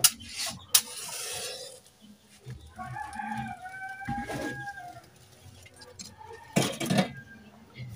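A rooster crowing once, a long call starting about two and a half seconds in. Sharp knocks at the very start and near the first second, a short hiss just after, and another brief clatter near the end come from the hearth.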